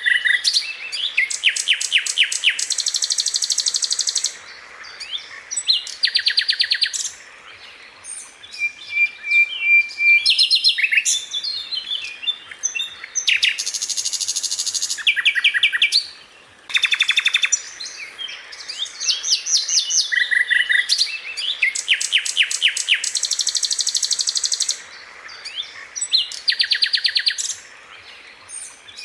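Sikatan londo flycatcher singing: fast trilled rolls and dense buzzy phrases broken by sharp, piercing notes, the pattern repeating about every ten seconds.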